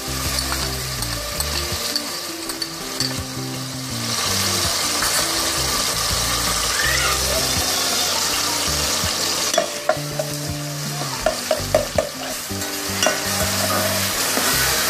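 Chopped onion sizzling as it fries in hot oil in a metal pot, stirred with a spoon. The sizzle grows louder about four seconds in, and the spoon clicks and scrapes against the pot a few times near the middle.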